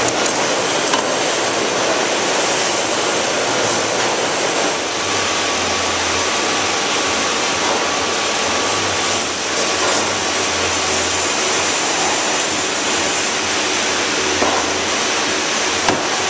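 Steady, loud background noise of running fish-processing machinery on a trimming flowline. A low hum comes in for a while mid-way, and a few light knocks sound about a second in and near the end.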